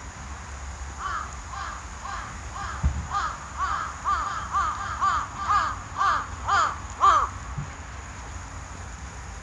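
A crow cawing over and over, about two caws a second, the caws getting louder toward the end. There is one low thump about three seconds in.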